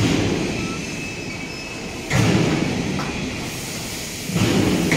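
Factory machinery noise: a rumbling din that surges suddenly about every two seconds and fades between surges.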